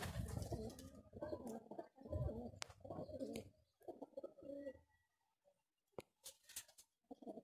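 Domestic pigeons cooing in short low phrases for the first few seconds, then a few faint sharp clicks.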